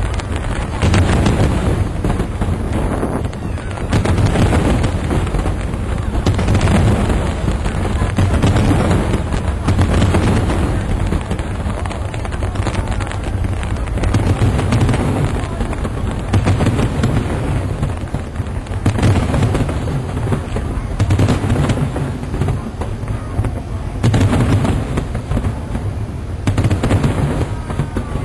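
Aerial fireworks bursting in a dense, continuous barrage: a rapid run of booms and crackles that swells and eases every couple of seconds.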